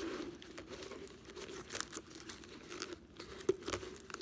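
Irregular crinkling and crackling of a flexible dryer vent duct being handled while a zip tie is pushed through a hole in it. There is one sharper click about three and a half seconds in.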